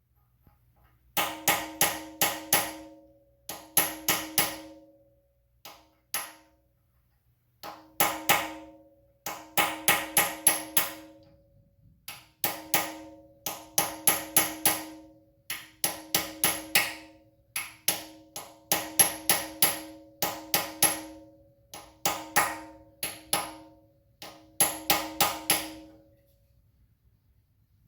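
Hammer blows on metal in quick groups of three to five, each strike ringing, with short pauses between the groups: a lock-tab washer being knocked over against the crankshaft sprocket nut.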